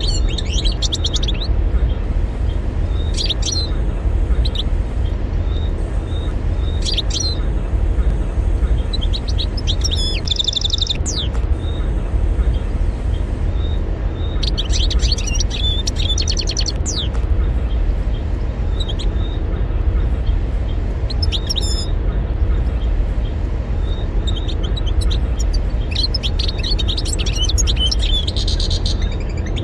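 European goldfinch singing in bursts of fast, high twittering song a few seconds apart, the longest phrases lasting two to three seconds, over a steady low rumble.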